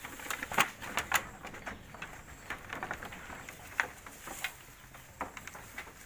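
Goats feeding on sun-dried cassava leaves and stems: irregular dry rustling and crackling clicks as they pull at and chew the leaves, with a few louder snaps in the first second or so.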